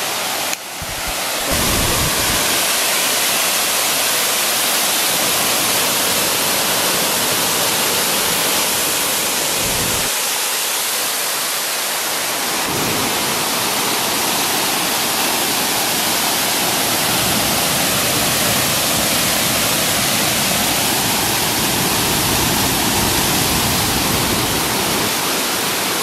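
Steady rushing of water from the Mississagi River's Aubrey Falls cascading over rock ledges close by.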